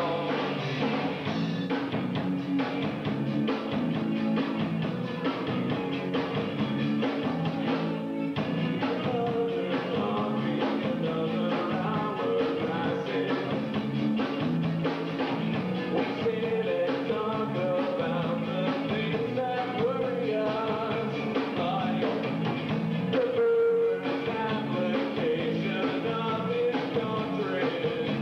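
Live alternative rock band playing a song with sung vocals over electric guitars, bass and drums, with a dull top end.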